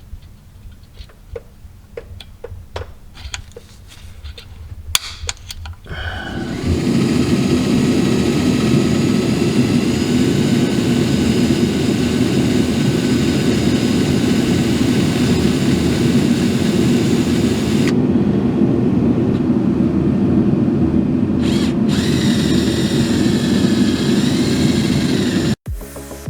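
A few light clicks and taps, then a power drill runs steadily for about twenty seconds, turning a left-hand drill bit into a broken transmission pan bolt. The drill's pitch wavers near the end, then it stops abruptly.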